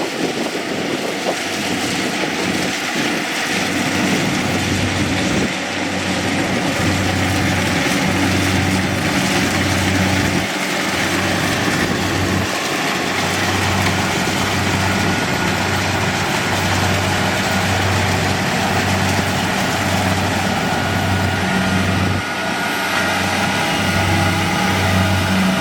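Kubota DC-70G PRO rice combine harvester's diesel engine and threshing machinery running steadily, with a low hum that throbs roughly once a second through most of it.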